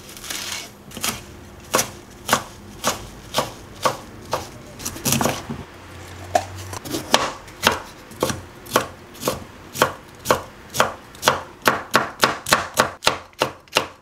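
Kitchen knife chopping vegetables (perilla leaves, bell pepper, green chili) on a wooden cutting board. Sharp, even strokes come about two a second, then quicken to three or four a second near the end.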